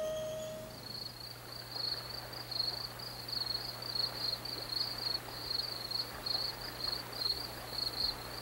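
Insects chirping in a steady, high, pulsing trill. A held musical tone fades out in the first second, and a faint low hum sits underneath.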